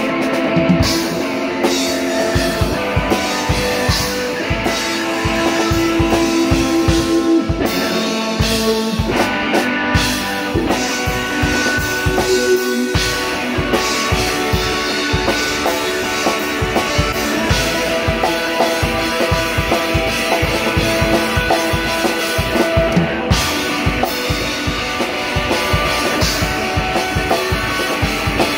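Live rock band playing, with electric guitar over a drum kit keeping a steady, fast beat.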